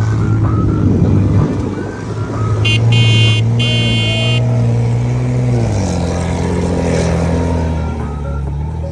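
A P-51 Mustang's Rolls-Royce Merlin V12 engine running in a low flypast, its steady drone dropping in pitch about six seconds in as it passes. A brief high, many-toned whistle sounds about three seconds in.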